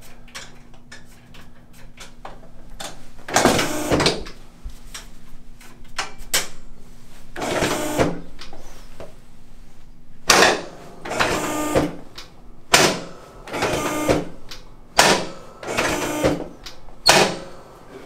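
A series of about nine sharp clunks, each with a short rattle, from a chiropractic adjusting table under a patient lying face down as the chiropractor presses on his lower back and pelvis. A faint steady hum stops about ten seconds in.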